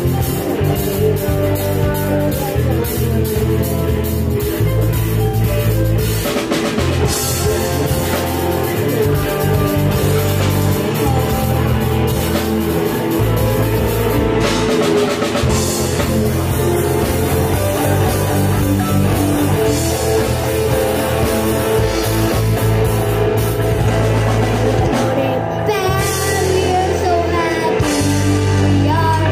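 Rock band playing a song, with the drum kit and its cymbals to the fore.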